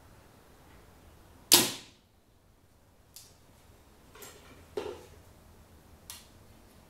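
Compound bow shot: a sharp snap as the string is let go by a release aid, about a second and a half in, dying away quickly. A few light clicks and knocks of handling follow as the bow is lowered and the next arrow is nocked.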